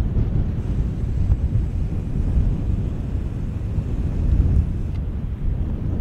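Wind buffeting the microphone outdoors: a steady, noisy low rumble with no bird calls heard.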